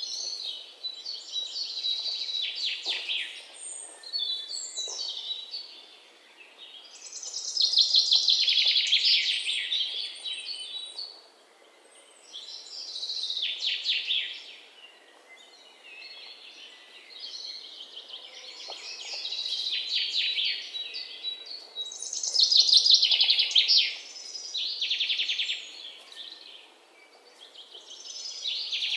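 Songbird song: high, fast-trilled phrases a couple of seconds long, repeated every few seconds with short pauses, the loudest phrases about eight and twenty-three seconds in.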